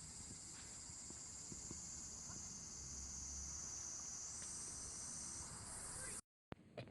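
A steady chorus of night insects chirring high-pitched, with a few faint crackles of a campfire. The chorus cuts off abruptly about six seconds in.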